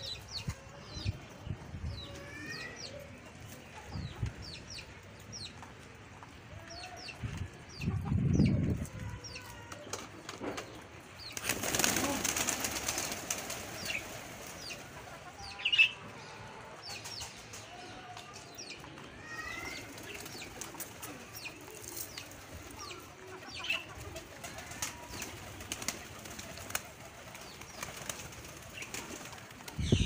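Domestic pigeons flapping their wings in a burst of take-off about twelve seconds in, against steady background chirping of birds, with one louder chirp a few seconds later.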